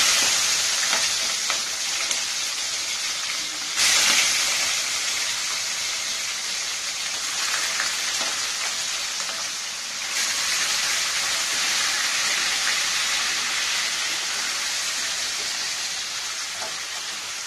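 Raw chicken pieces frying in hot oil in a kadhai, a loud steady sizzle that starts suddenly as the chicken goes in. It swells again about four seconds in, then slowly dies down.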